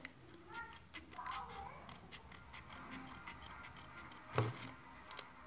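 Scissors snipping through folded craft paper: a run of short, crisp cuts, with one louder knock about four seconds in.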